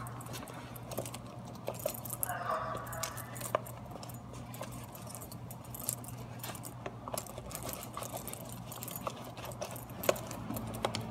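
Fingers rubbing dish soap over the plastic lens of an SCBA face piece as it is turned over in the hands, with scattered small clicks and ticks of the mask being handled. A steady low hum runs underneath.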